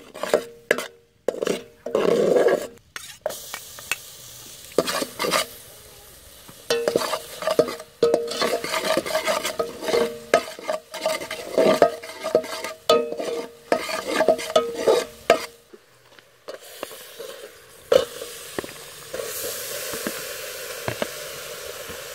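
A metal ladle stirring and scraping around an aluminium pot of bubbling brown sauce, with repeated clinks against the pot over a sizzle. Near the end the scraping gives way to a steady hiss.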